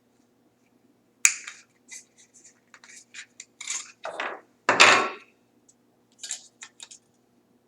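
Handling and fitting Weidmuller service-port parts, plastic inserts being pushed onto a mounting frame: a run of small clicks, taps and scrapes, with a sharp knock about a second in and a louder thump a little before five seconds.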